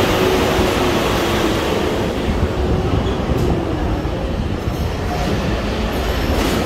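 Moving escalator running with a steady mechanical rumble and hum, over the general noise of a busy shopping mall.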